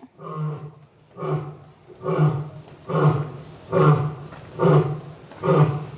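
Lion roaring in a bout: about seven short roars, one every second or so, getting louder after the first few. Onlookers take it for an angry lion.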